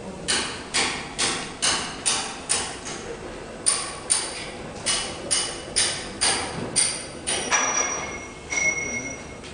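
A run of about seventeen sharp knocks, roughly two a second, like hammer or mallet strikes, with two short breaks along the way. The last few strikes ring with a brief high tone.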